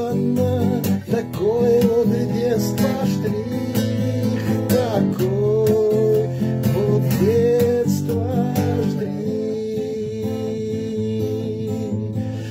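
Acoustic guitar strummed as accompaniment to a man's singing voice, which holds long sustained notes in the second half.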